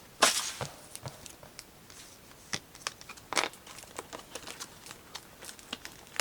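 Plastic packaging of card sleeves crinkling and tearing as it is opened: a loud burst of crinkling just after the start, then scattered faint rustles and clicks of handling.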